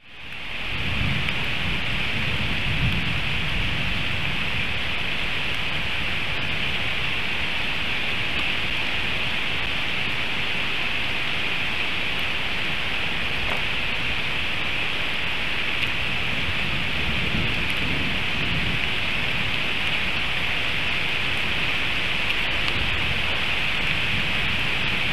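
Heavy rain falling steadily as an even hiss, fading in at the start, with low rolling rumbles of thunder a couple of seconds in and again about two-thirds of the way through.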